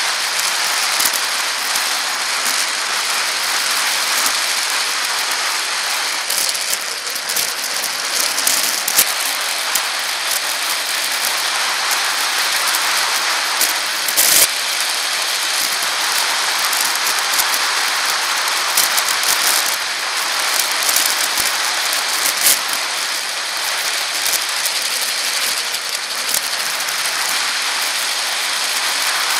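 Riding noise of a bicycle on a paved path: a steady hiss of tyres and moving air, with scattered clicks and rattles from the bike, the sharpest about halfway through.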